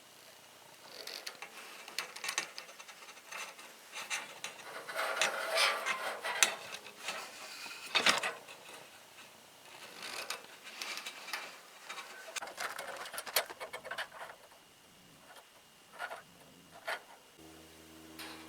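Handheld saw tooth setter worked on the steel teeth of a band sawmill blade: irregular metal clicks and rubbing as the setter closes on a tooth and the blade is handled, with a sharper click about eight seconds in.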